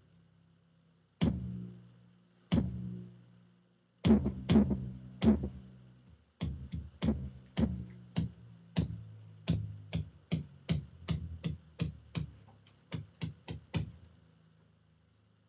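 Drum machine hits sounding one at a time: sharp strikes each trailing into a low bass tone, a few spread out at first, then a run of about two to three hits a second that stops about fourteen seconds in.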